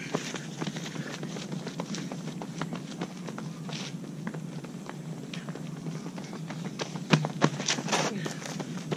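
Running footsteps of people sprinting on a concrete road, a patter of short slaps and taps, with a louder run of close footfalls about seven seconds in as a runner passes near the microphone.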